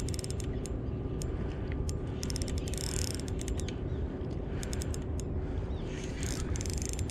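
Spinning fishing reel clicking in several short runs of rapid ticks as it is worked against a hooked queenfish, over a steady low wind rumble on the microphone.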